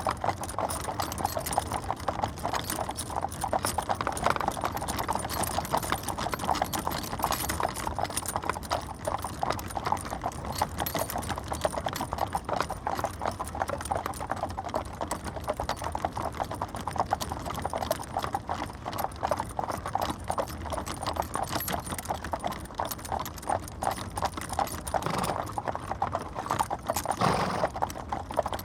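Horse-drawn carriage on the move: a steady, continuous run of hooves clip-clopping, with a brief louder sound near the end.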